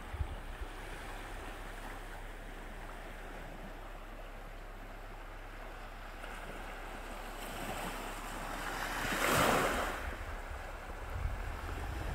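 Sea waves washing on the shore, one wave building and breaking loudest a little past the middle, then fading. Gusts of wind rumble on the microphone near the end.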